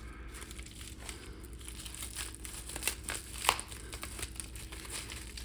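Tightly wrapped packing material on a mail package being pulled open by hand: irregular crinkling and crackling, with one sharper snap about three and a half seconds in.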